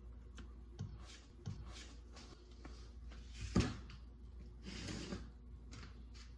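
Light knocks and clunks of tools and parts being handled and set down, the sharpest about three and a half seconds in, with a short rustle near five seconds, over a steady low hum.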